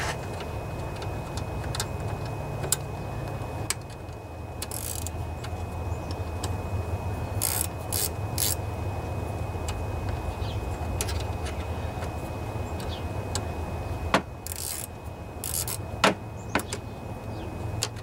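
Small wrench clicking and scraping against a battery terminal bolt as the negative cable is loosened from a riding mower's battery, with a few sharp metal clicks near the end, over a steady low hum.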